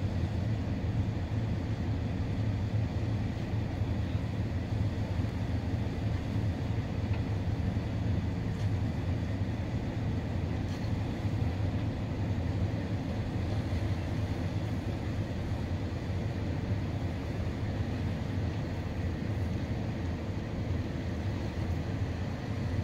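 Tugboat's diesel engines running in a steady low drone as it manoeuvres a loaded barge in to berth, with a faint steady whine above it.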